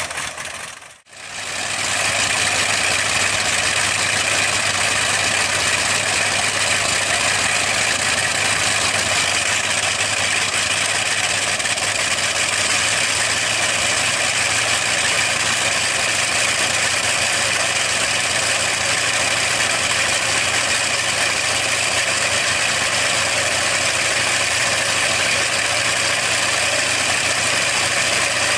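Bristol Hercules 14-cylinder sleeve-valve radial aircraft engine running steadily on its trailer test stand with the propeller turning. The sound dips out briefly about a second in, then holds steady.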